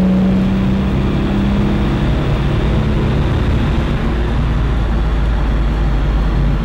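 BMW E46 330d's straight-six turbodiesel running on a chassis dynamometer during a power measurement: a loud, steady rush with a deep rumble underneath. A humming tone fades out about two seconds in.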